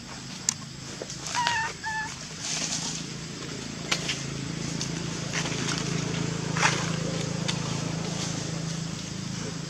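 Outdoor background with a steady low hum, two short high calls from an animal about a second and a half in, and a few sharp clicks.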